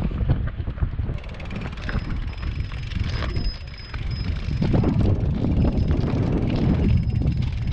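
Strong wind buffeting the microphone of a camera on a moving mountain bike, with the bike clattering and rattling over rough ground.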